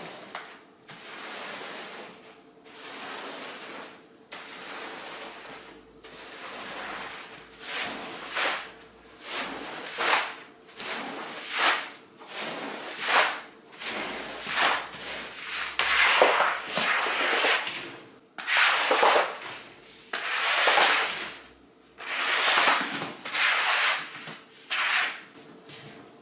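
A hand-worked cleaning tool dragged in repeated strokes across a carpet, about one stroke a second, each a rough scraping swish, louder from the middle on.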